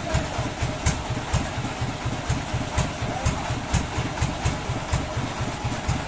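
An engine idling with a fast, even low chugging, and sharp ticks every half second or so.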